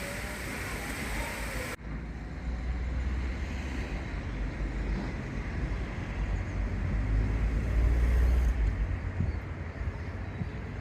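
Low rumble of road traffic, swelling a little about seven seconds in; the background changes abruptly a little under two seconds in.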